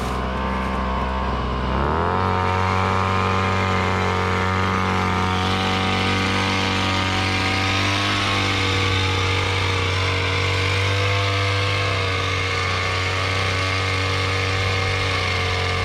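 Small engine of a KOSHIN EP-10P engine-driven power sprayer running. About two seconds in it speeds up with a short rise in pitch, then runs steadily at the higher speed.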